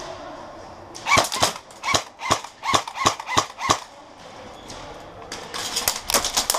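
Airsoft guns firing: a string of about ten sharp pops between one and four seconds in, then a faster run of shots near the end.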